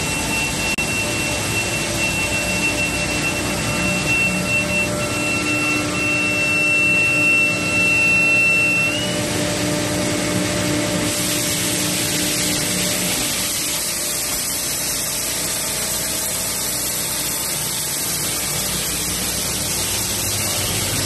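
Machinery of a Banbury mixer and extruder pelletizing line running steadily: a constant hum and whir with a high whine that rises slightly and stops about nine seconds in. From about eleven seconds the noise turns more hissy.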